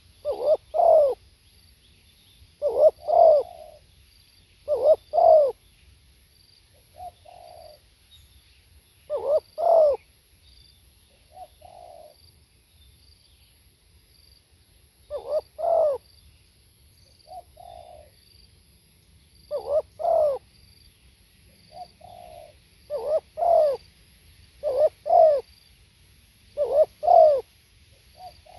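Spotted dove cooing: loud phrases of two or three coos about every two seconds, with softer single coos in between.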